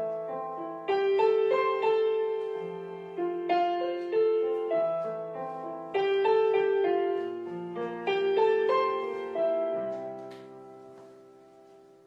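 Solo piano playing the slow closing chords of a song, a new chord struck about every two and a half seconds, the last one dying away over the final two seconds.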